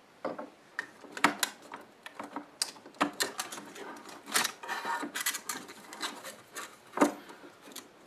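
Irregular clicks, knocks and scraping of plastic and sheet metal as an open computer power supply is handled and its cooling fan is worked loose and lifted out, with a sharper knock near the end.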